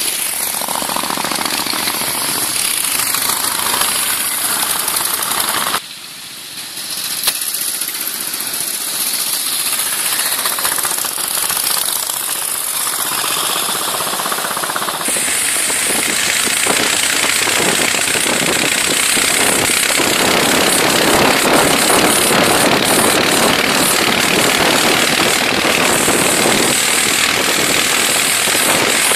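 Veteran motorcycle engines running with a fast, rattling beat as old bikes ride past. From about halfway the sound becomes an early vehicle's engine heard on board while driving, with heavy wind noise.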